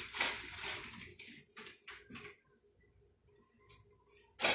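Light handling noises at a kitchen counter, a few rustles and soft knocks, fading into a lull. Near the end comes a sudden clatter of dishes and utensils.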